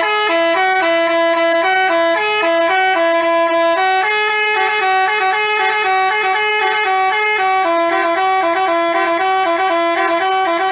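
Basuri 'telolet' multi-tone bus horn playing a quick tune of short notes that step up and down in pitch, without a break for about ten seconds.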